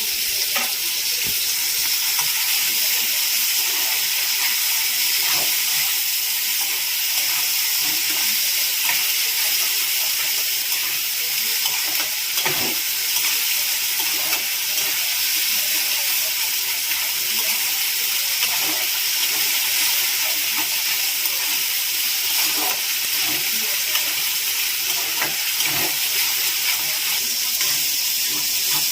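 Chopped onion, garlic, ginger paste, tomato and green chilli sizzling steadily in hot oil in a kadai, the masala being fried down, with short spatula scrapes and knocks every so often as it is stirred.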